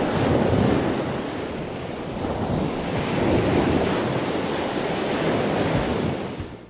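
Ocean waves and wind, a steady rushing that swells and eases slowly and fades out near the end.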